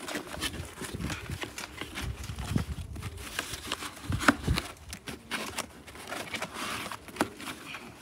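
Cardboard live-bird shipping box being closed by hand: the flaps are folded and pressed, giving irregular taps, knocks and scrapes of cardboard. The sharpest knock comes about four seconds in.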